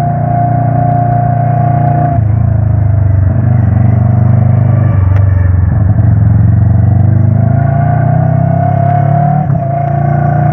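Motorcycle engine running steadily at road speed with wind noise, its pitch stepping down about two seconds in and rising again later.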